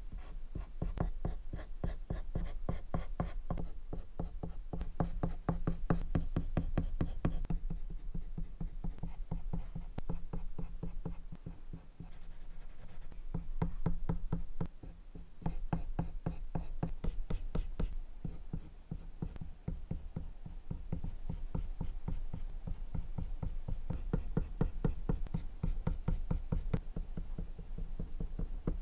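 Colored pencil scratching over paper in many quick back-and-forth shading strokes, close to the microphone, with a couple of brief pauses.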